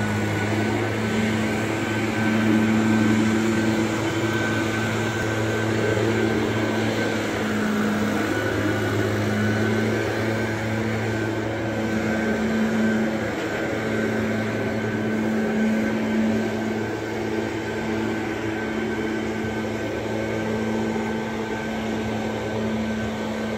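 Parking lot sweeper running steadily: a low engine hum with a thin high whine above it and a rushing noise throughout.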